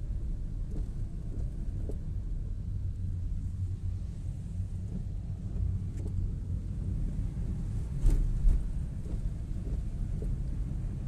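Steady low rumble of a car's cabin while driving in heavy rain, with scattered faint ticks of raindrops on the car. Two louder thumps come about eight seconds in.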